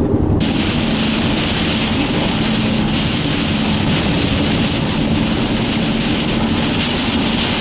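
Loud, steady rushing of gust-front storm wind, starting suddenly about half a second in, over the low hum of the chase vehicle.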